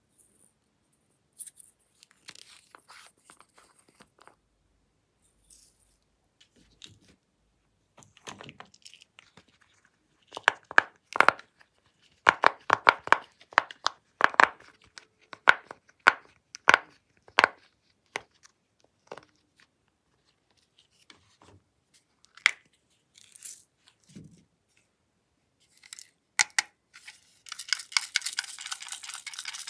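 Sharp pops and clicks in a quick uneven run, loudest in the middle stretch, from a silicone pop-it fidget toy being handled. Near the end, dense, continuous crackling starts as a small toy is pressed into a tray of glossy slime with beads.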